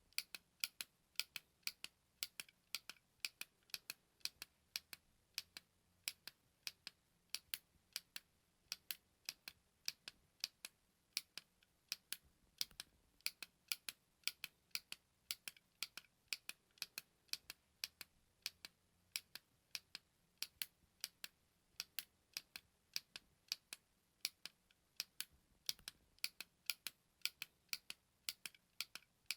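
Button clicking over and over: short, sharp, dry clicks at about three a second, at a fairly even pace.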